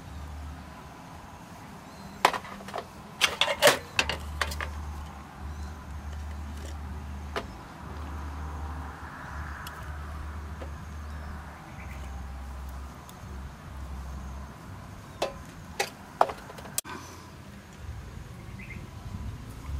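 Sharp clicks and taps of thin aluminium drink cans being handled, as raw beef is pushed by hand into a cut-open can and cans are set down on a metal tray. The clicks come in a cluster about three seconds in and again near the end, over a steady low rumble.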